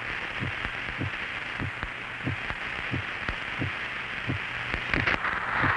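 Open radio channel between transmissions: a steady hiss of static over a low hum, with soft low thumps coming evenly about one and a half times a second.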